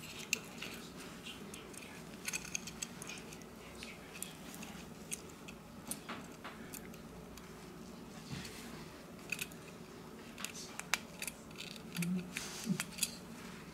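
Irregular light clicks and taps of small phone parts being handled: a Xiaomi Mi 9 SE's logic board and rear camera module knocked and pressed together by fingers, with a closer run of clicks near the end. A steady low hum runs underneath.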